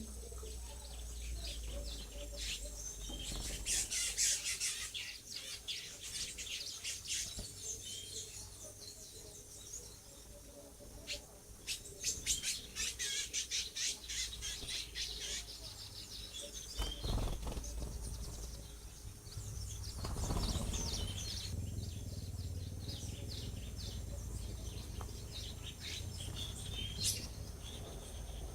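Several birds chirping and calling, with bursts of rapid, repeated high chirps, over a low rumble.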